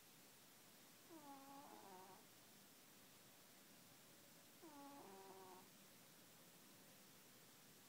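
Sleeping cat snoring faintly: two squeaky, pitched snores about three and a half seconds apart, each lasting about a second, with the pitch dipping at the start of each.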